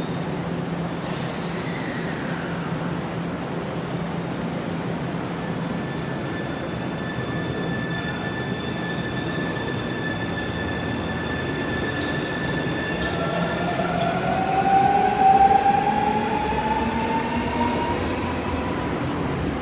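Keio 1000 series electric train heard from inside the car as it pulls away. Its Toyo Denki IGBT VVVF inverter and traction motors give a steady high whine, then from about two-thirds of the way in, several tones rising in pitch as the train gathers speed. A short hiss comes about a second in.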